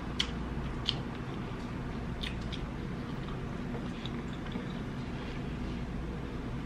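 Close-miked chewing of a mouthful of colossal shrimp, with a few soft mouth clicks in the first couple of seconds over a low steady hum.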